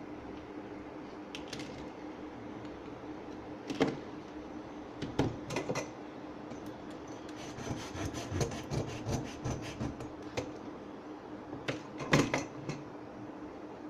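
Hand work on a small object: a few sharp knocks and clicks, and in the middle a quick run of scraping strokes, over a steady low hum.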